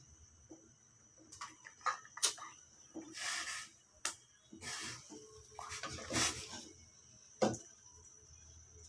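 Metal ladle stirring soup in a stainless steel pot: the broth sloshes in about three swishes, with sharp clinks of the ladle against the pot between them, the last one near the end.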